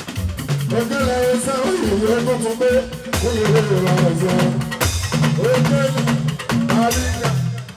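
Live fuji band music: drums and percussion over a stepping bass line, with a wavering lead melody on top.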